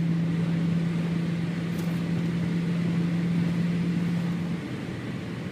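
Inside the cabin of a 2003 BMW E39 540i cruising at about 90 mph: steady road and wind noise with a steady drone from its 4.4-litre V8. The drone drops away about four and a half seconds in.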